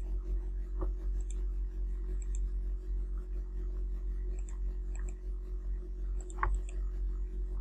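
A few computer mouse clicks over a steady low electrical hum, the clearest about a second in and near the end.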